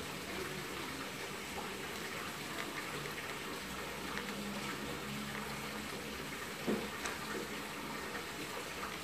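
Faint rustling and crinkling of a clear plastic wrapper as a mini squishy is handled inside it, over a steady hiss, with one sharper click about three-quarters of the way through.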